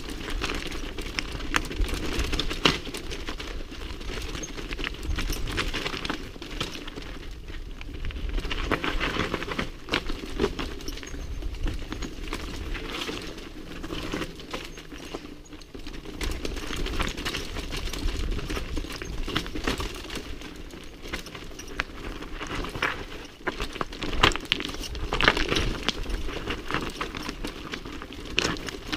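Mountain bike descending a rocky trail: tyres crunching over loose stones and the bike rattling, with a constant stream of small knocks and clatters and a few louder jolts.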